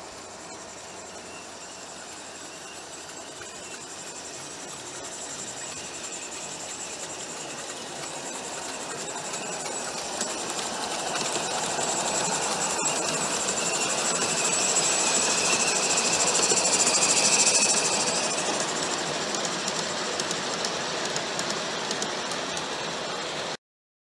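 Live-steam G-scale locomotive, an Accucraft C-19, hauling a freight train: steady steam hiss and the rolling of the cars, growing louder as the train draws close and passes, then cutting off suddenly near the end.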